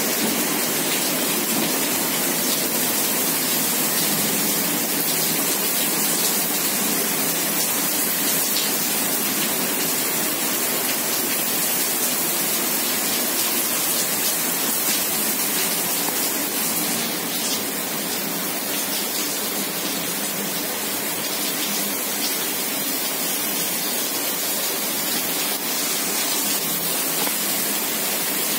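Heavy rain falling steadily onto paved paths, standing water and grass: an even, unbroken hiss of downpour.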